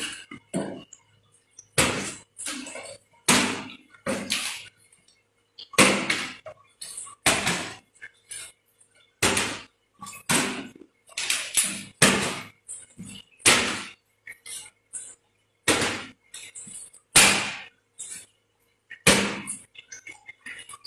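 A series of loud, sharp bangs or slaps, irregularly spaced about one every second or so, each dying away quickly.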